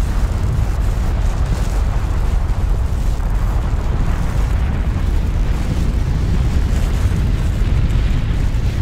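Deep, steady rumble of a volcanic eruption, with a rushing hiss above it.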